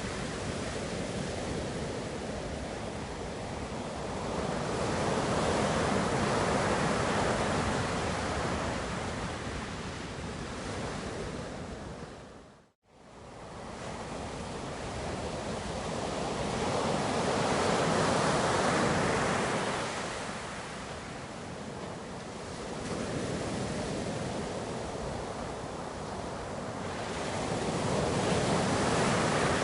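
Ocean waves breaking and washing on the shore, the surf swelling and fading in slow surges about every ten seconds. There is a brief dropout to silence about halfway through.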